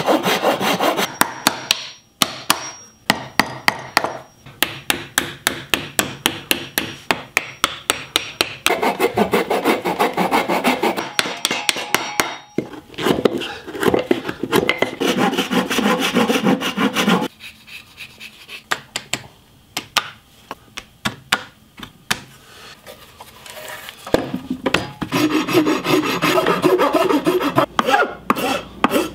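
Hand tools working aromatic cedar: a hand saw, then a chisel, then a rasp. The sound comes in several short passes, each a run of quick, rhythmic strokes on the wood.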